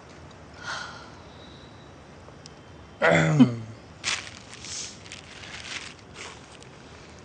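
A person laughing: one loud voiced laugh falling in pitch about three seconds in, followed by a few breathy laughs.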